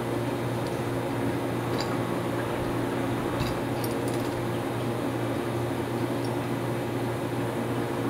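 Steady low mechanical hum, with a few faint light clinks of steel parts as the pieces of a homemade crimping die are fitted into their steel base plate.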